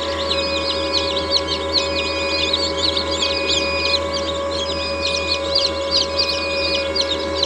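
A crowd of newly hatched chicks peeping: many short, high, overlapping peeps without pause, over a steady hum.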